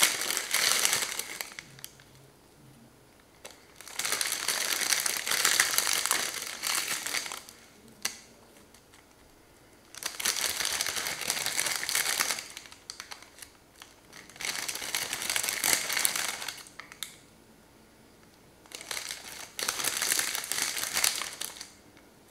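Clear plastic packet of ladyfingers crinkling as biscuits are pulled out of it, in five bursts of one to three seconds with quiet between them.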